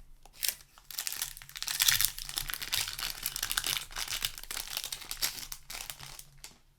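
Foil wrapper of a Magic: The Gathering set booster pack crinkling as it is handled and torn open. The dense crackling is loudest about two seconds in.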